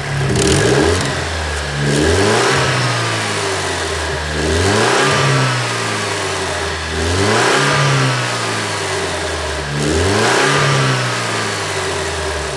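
Alfa Romeo Giulia's turbocharged engine, fitted with a straight-pipe exhaust, heard from the open engine bay being revved about five times in a row. Each rev climbs and drops back, and a turbo whistle falls away after each peak.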